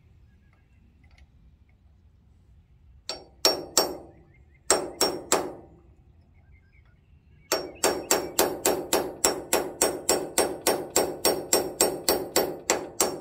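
Hammer striking a steel punch to drive a roll pin down through a PTO overrun clutch coupler on a Ford 8N's PTO shaft. After a quiet start come two groups of three blows, then from about halfway a steady run of blows about three a second, each with a bright metallic ring.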